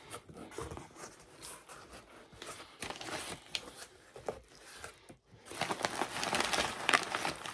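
Packaging being torn open and unwrapped by hand: irregular crinkling, rustling and tearing, busier and louder in the last two seconds.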